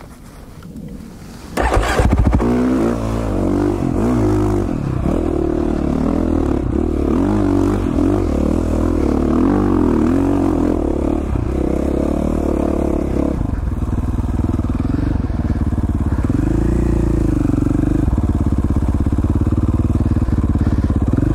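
Dirt bike engine running as the bike is ridden, its pitch rising and falling with the throttle. It cuts in loudly about a second and a half in, after a quieter start.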